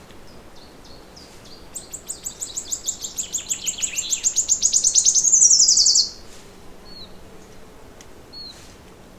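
Songbird singing a long, rapid trill of high repeated notes that grows steadily louder for about four seconds and then stops abruptly, with a few faint short chirps from other birds around it.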